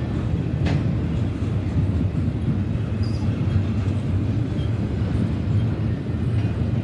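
Double-stack intermodal container train rolling past: a steady low rumble of wheels on rail.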